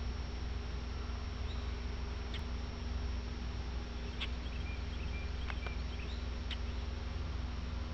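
Quiet pond ambience: a steady low rumble with a few faint, short high chirps scattered through it, about four or five in all.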